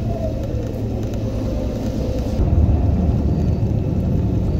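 Steady low rumble of a vehicle driving, the road and engine noise heard from inside the cabin.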